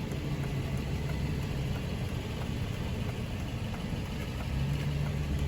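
Aston Martin Vanquish's naturally aspirated 6.0-litre V12 idling steadily with a low, even hum.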